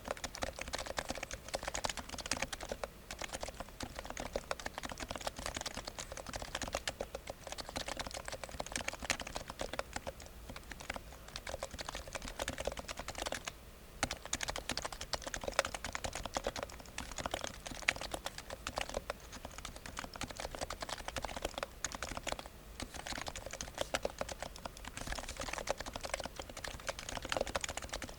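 Continuous fast typing on a Topre REALFORCE GX1 Plus keyboard with electrostatic capacitive switches: dense, quite quiet, muted keystrokes with a few brief pauses.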